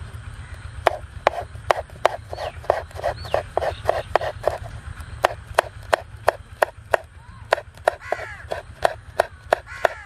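Kitchen knife chopping green chillies on a bamboo cutting board: sharp, regular knocks of the blade against the board, about three a second, starting about a second in, with brief pauses. Birds call in the background.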